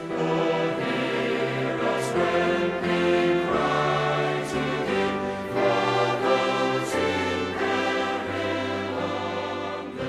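Orchestral music with a choir singing slow, sustained chords that change every second or two.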